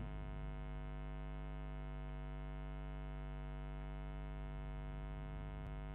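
Steady electrical mains hum, buzzy with many overtones, with one faint click near the end.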